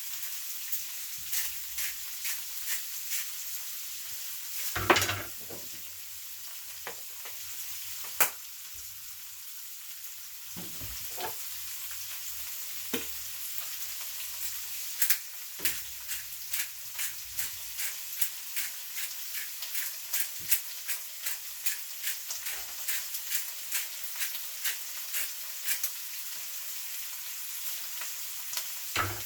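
Stir-fry sizzling steadily in a hot pan, with frequent short clicks and scrapes of a utensil stirring it and a couple of louder knocks, about five and eight seconds in.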